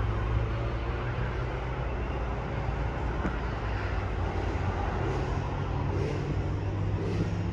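Triumph Thruxton 1200's 1200 cc parallel-twin engine idling steadily.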